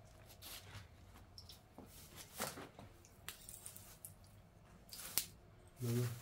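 Scattered rustling and clicking of things being handled, with one sharp click about five seconds in and a short low-pitched sound near the end.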